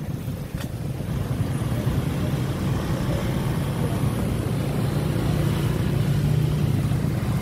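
Street traffic of motorbikes and scooters with a small pickup truck: engines running as they ride past, with a steady low engine hum that strengthens a few seconds in.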